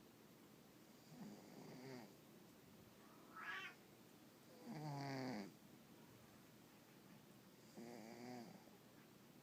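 Russian Blue cat snoring: three drawn-out, pitched snores about three seconds apart, the middle one loudest, with a short rising whistle just before it.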